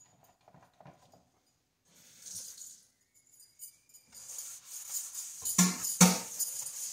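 A scouring sponge with a steel-wire side scrubs a stainless steel sink coated with baking powder and vinegar. It is mostly quiet at first, then rapid rasping strokes start about four seconds in, with two louder knocks near six seconds.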